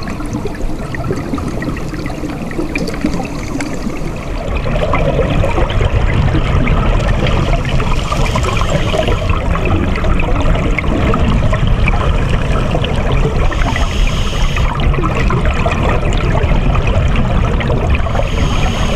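Underwater water and bubble noise: a steady rushing with dense crackling, louder from about four seconds in.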